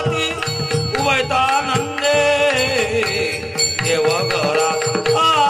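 Varkari bhajan: voices singing a devotional melody over a steady held drone note, with hand cymbals and drum keeping a continuous beat.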